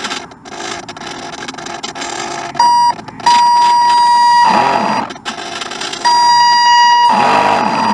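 Loud electronic alarm beeping: a short beep, then two long steady beeps of about a second each, each long beep followed by a brief rushing, warbling noise.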